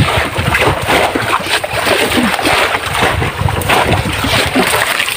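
Water splashing and slapping irregularly against the hull of a small boat.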